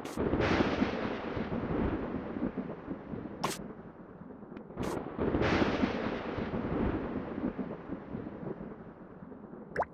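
Two rolls of thunder, each breaking quickly and rumbling away over several seconds, the second about five seconds after the first. A few short sharp clicks fall between them.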